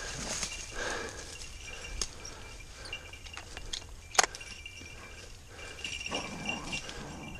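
Dogs barking faintly in the distance over the rustle of dry bracken and brush as a hunter pushes through undergrowth, with one sharp click about four seconds in.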